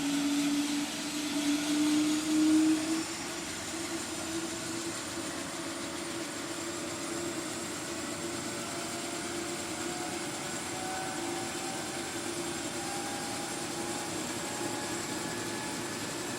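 Helicopter engine starting up: a steady turbine whine over a hum, with tones slowly rising in pitch as it spools up. It is louder for the first three seconds, then settles.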